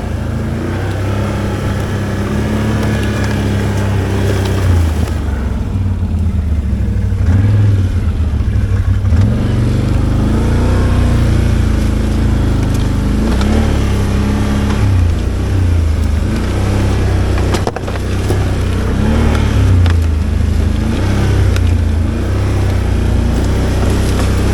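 ATV engine running loud at trail speed, its pitch rising and falling again and again as the throttle is worked on and off.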